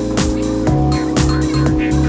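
Background music with a steady beat and sustained bass and synth notes.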